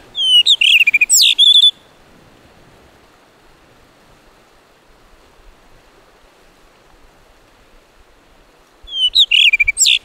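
Male blue rock thrush singing: a loud phrase of quick, fluting whistled notes that slide up and down, lasting under two seconds at the start, and a second phrase near the end. Faint, even surf hiss in between.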